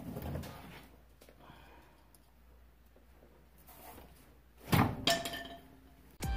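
A few light knocks of a pry bar levered against a Nissan Sentra's front drive axle. Then, about three-quarters of the way through, the bar is struck sharply: two loud metallic knocks in quick succession with a short ring, as the retaining circlip snaps closed and the inner CV joint pops out of the transmission.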